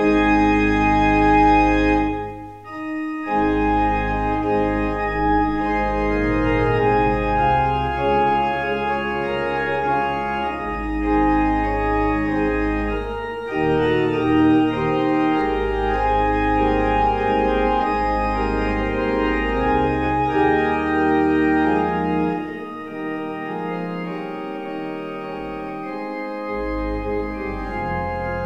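Church organ playing sustained chords over a deep pedal bass. The sound breaks off briefly about two and a half seconds in, and near the end the bass drops out and the playing turns softer.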